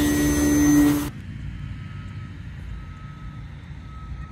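Propeller and electric motor of a 3D-printed RC model warplane running close with a steady, loud whine. About a second in it drops abruptly to a faint, distant hum.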